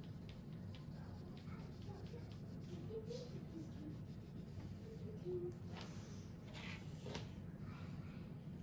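Faint scratching of a cloth swab rubbed against a steel knife blade during 9-volt battery electro-etching, with a few short strokes about six to seven seconds in, over a steady low hum.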